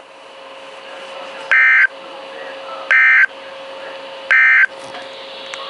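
Three short, loud, buzzy data bursts about a second and a half apart from a Midland WR100 weather radio's speaker. This is the NOAA Weather Radio SAME end-of-message code that closes the warning broadcast. Between the bursts there is a faint steady hum and radio hiss.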